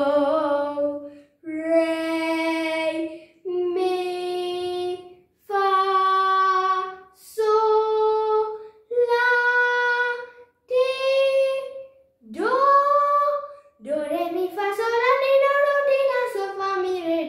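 A young girl singing unaccompanied, holding one note at a time up a rising scale of about seven notes, with short breaks between them. Near the end she slides up into a longer phrase that climbs and then falls.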